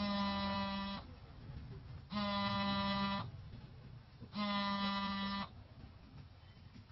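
A horn sounds three times, each a steady blast of about a second at one unchanging pitch, with about a second's gap between blasts.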